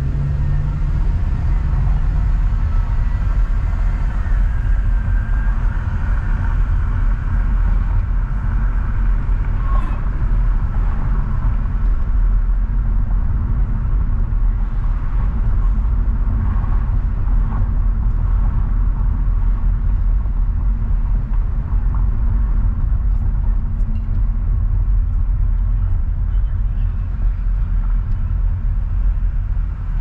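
Car being driven at city speed: a steady low rumble of engine and tyres on the road.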